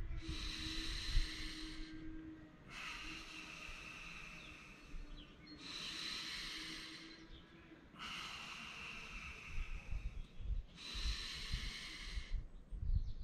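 A man breathing slowly and deeply, long hissing inhales and exhales of two to three seconds each with short pauses between. These are diaphragmatic breaths drawn into the back of the lower ribs.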